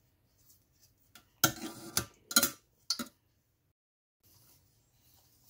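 Kitchen knife clinking and scraping against a stainless steel pot while boiled potatoes are peeled: four short knocks between about one and a half and three seconds in, the first with a brief metallic ring.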